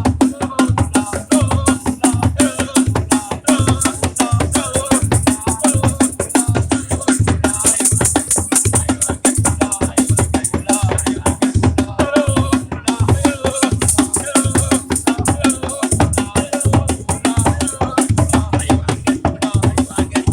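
Praise music: voices singing over a steady, even drum beat with rattles or shakers.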